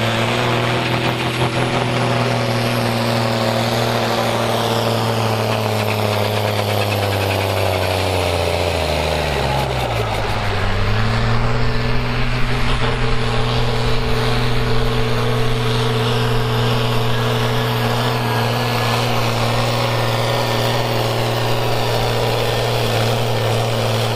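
Fiat 1580 tractor's diesel engine running hard under full load while pulling a heavy sledge, with a steady, loud note. About ten seconds in, the engine speed sags under the load, then picks back up and holds steady again.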